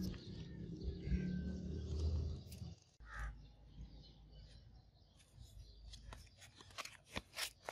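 Hand-sanding a steel katana blade with 600-grit sandpaper: several short, sharp strokes near the end. A low rumble fills the first few seconds, and a brief pitched call sounds once about three seconds in.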